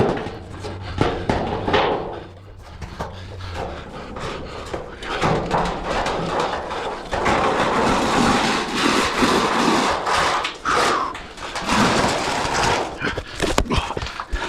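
Roofing work noise: repeated knocks and clatter, with a longer stretch of scraping and rustling in the middle, as a crew handles and sets metal roofing panels.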